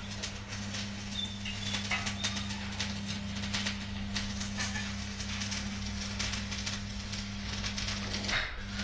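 A steady electric motor hum runs throughout and breaks off briefly near the end. Over it come frequent light metallic clicks and scrapes as a hand tool works against a cast steering knuckle.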